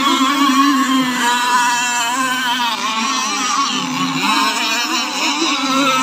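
Several racing RC powerboats running flat out at once, their overlapping high-pitched engine notes wavering up and down in pitch.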